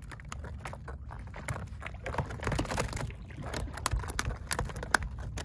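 Sounds of a small fishing boat riding at sea: a low steady rumble with water against the hull, and many scattered small clicks and knocks.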